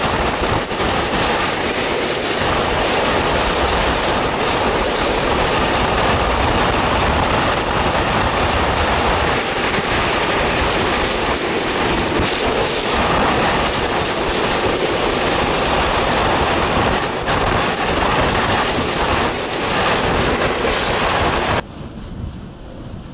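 Hurricane eyewall winds howling with driving rain: a loud, steady rush with brief surges. Near the end it drops abruptly to a quieter wind.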